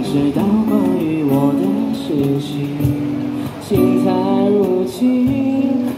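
A singer singing a slow song into a microphone, accompanied by an acoustic guitar.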